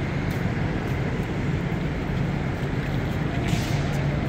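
Steady low mechanical hum and rumble, with a short hiss about three and a half seconds in.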